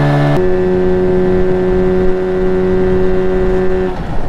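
Jon boat's outboard motor running under way; about half a second in its note changes abruptly to a lower, weaker hum, and near the end the engine stops, leaving wind and water noise. This is the motor cutting out, after it had just about cut off moments before.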